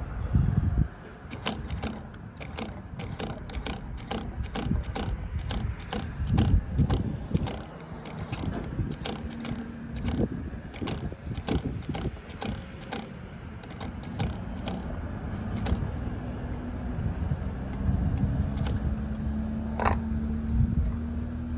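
Gas pump nozzle filling a vehicle's fuel tank: a steady low rush of fuel, with many sharp mechanical clicks throughout. A faint steady hum comes in about halfway and grows stronger near the end.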